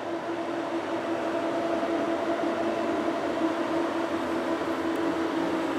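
PKP EP07 electric locomotive hauling a passenger train slowly past: a steady hum over an even rolling noise.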